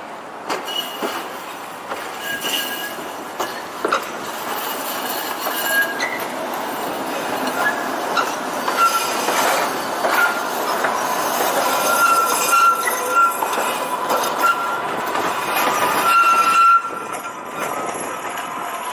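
Tram running along its track, the wheels squealing in short high tones again and again, with scattered sharp clicks from the rails. The sound grows louder and drops off suddenly near the end.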